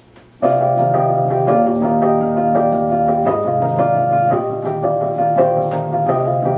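Wurlitzer EP200 electric piano starting about half a second in, playing a rhythmic pattern of repeated chords over a bass note that shifts every second and a half or so.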